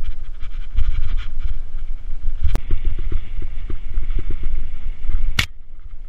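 Wind buffeting a helmet-mounted action camera's microphone as a mountain bike rolls fast over a dirt trail, with a run of small rattles and two sharp clicks, about two and a half and five and a half seconds in.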